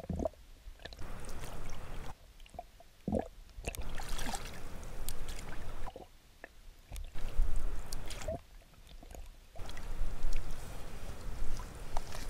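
Lake water sloshing and gurgling as a plastic bottle is held under the surface and filled, the sound going muffled and quiet by turns as the camera dips under the water, with a few short gurgles.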